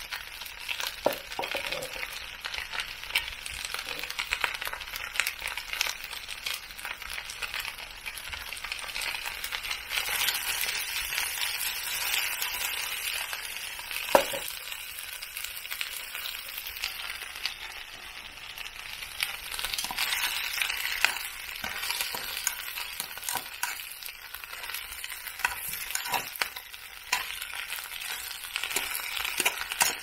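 Chicken skewers and onion sizzling in a frying pan over a small wood-burning camp stove. The hiss swells and fades, with scattered light clicks and one sharp click about fourteen seconds in.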